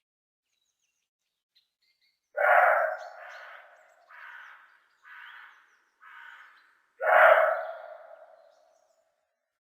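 Fallow deer barking: two loud barks about four and a half seconds apart, each trailing off. Between them come three fainter, shorter calls at about one a second.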